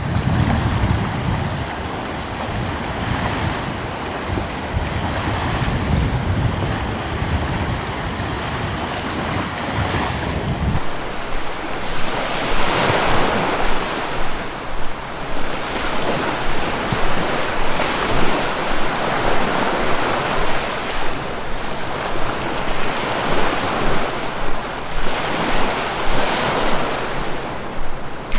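Ocean surf: waves breaking and washing in continuously. A low wind rumble underlies the first ten seconds or so and cuts off suddenly. After that the surf comes in repeated swells.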